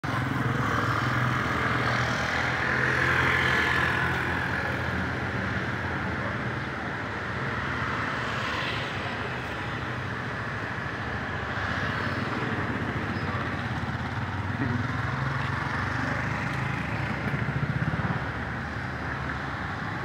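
Road traffic: motor vehicle engines running past in a steady hum that swells louder twice, about three seconds in and near the end.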